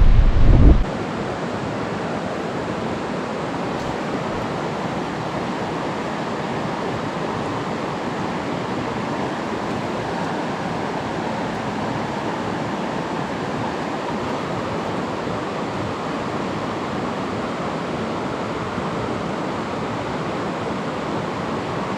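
Steady rush of flowing stream water, an even hiss with no rhythm. The first moment is buffeted by wind on the microphone.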